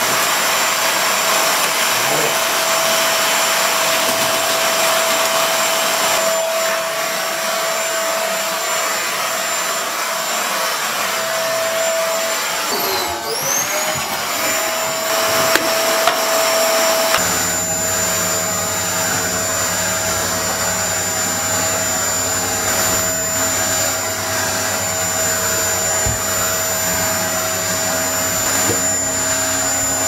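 Cylinder vacuum cleaner running steadily, a loud whooshing suction with a high motor whine. About halfway through, its pitch dips briefly and recovers. After that a deeper hum joins as the nozzle is worked over stair carpet.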